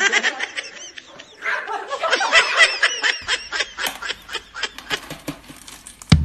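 High-pitched, squealing laughter for the first few seconds, then a run of light dry clicks and rattles as cereal is poured out of a plastic container.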